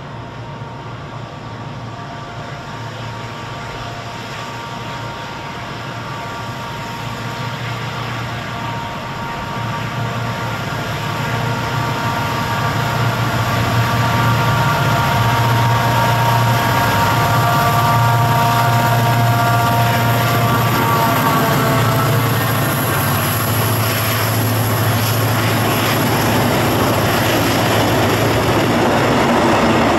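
EMD GT26CW-2 diesel-electric locomotive, with its 16-cylinder two-stroke EMD 645 engine, running steadily under load as it approaches, growing louder. About two-thirds in, its pitch drops as it passes, and the rumble and clatter of freight hopper wagons rolling by follows.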